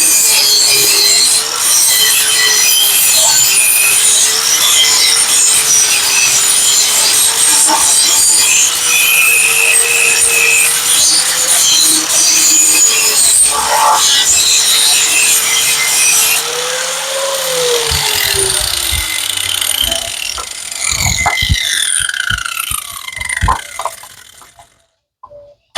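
Electric angle grinder grinding metal with a steady motor whine and a harsh hiss. About two-thirds of the way through the grinding stops and the motor is switched off, its whine falling in pitch as the disc spins down.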